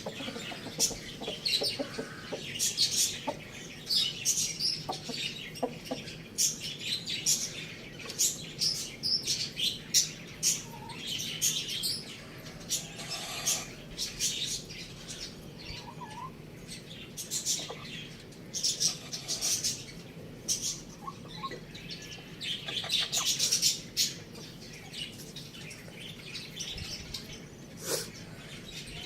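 Small birds chirping in quick, short, high-pitched calls, many overlapping and near-continuous.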